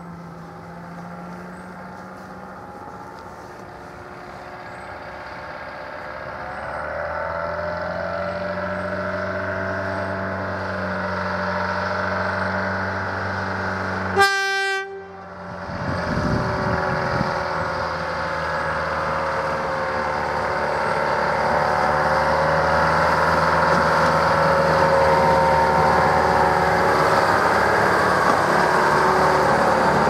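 Diesel engine of a TR-class shunting locomotive running as it approaches, its steady low note growing louder. About halfway through, one very short toot of its horn.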